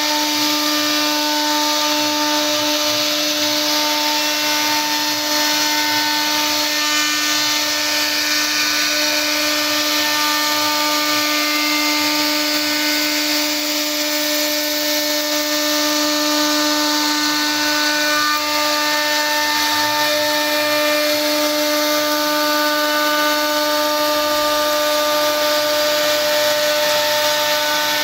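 CNC router spindle running steadily while its bit carves a relief pattern into a wooden panel: an even, unchanging pitched whine over the rough noise of the cutter in the wood.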